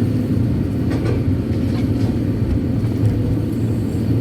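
Kobelco SK200-8 Super X excavator's diesel engine running steadily while working, heard from inside the operator's cab, with a couple of faint knocks.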